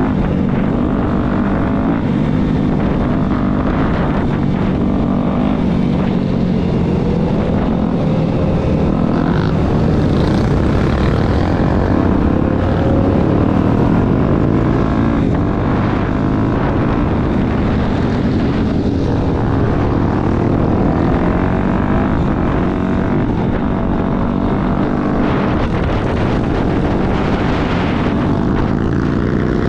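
Dirt bike engine running at speed, heard from on the bike itself, its pitch rising and falling with the throttle over a constant rush of wind and road noise.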